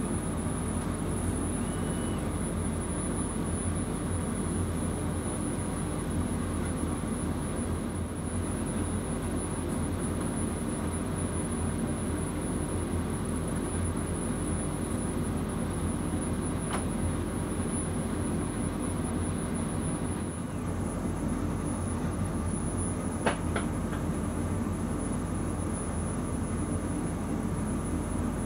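Laser cutting machine running while it cuts paper: a steady low mechanical drone with a faint, thin high whine over it, and a couple of faint ticks in the second half.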